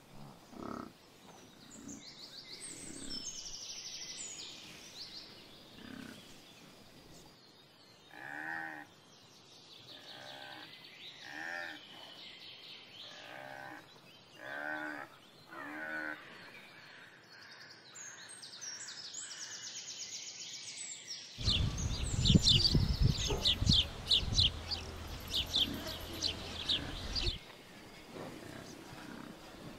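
Pasture ambience with birdsong: a farm animal gives about six short calls, one every second and a half or so. About two-thirds of the way through, a loud low rumble lasts several seconds and then cuts off.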